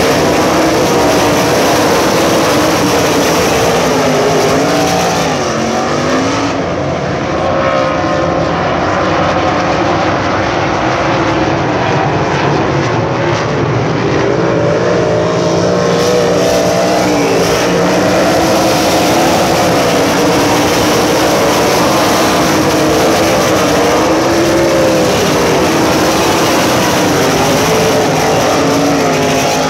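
A field of USAC Silver Crown race cars running laps on a dirt oval. Several engines rev at once, their pitch rising and falling as cars go by and lift for the corners.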